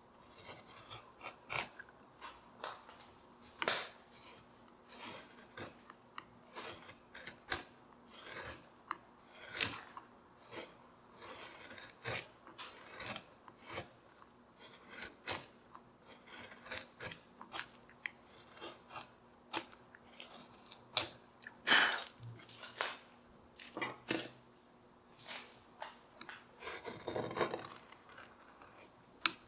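Hand carving gouge cutting into walnut wood: short, crisp slicing strokes at an irregular pace, about one or two a second, each peeling off a curled shaving. Near the end comes one longer scraping cut.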